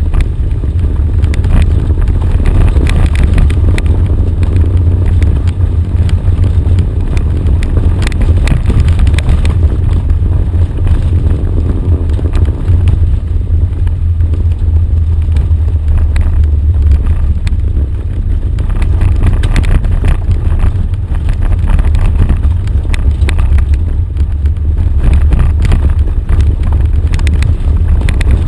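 An off-road 4x4 drives slowly down a gravel dirt track, heard from inside the cab. The engine and drivetrain make a steady deep rumble, with scattered small clicks and rattles throughout.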